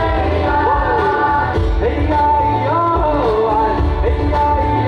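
Live band music with several voices singing a melody together over a steady bass line.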